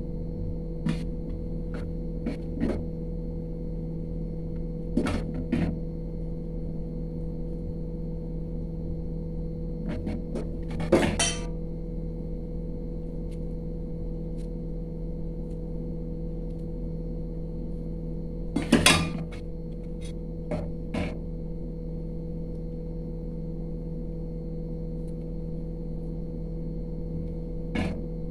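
Stainless steel plates and bowls clinking and knocking now and then as hands shape and roll food on them, over a steady hum. The loudest clatter comes about two-thirds of the way through.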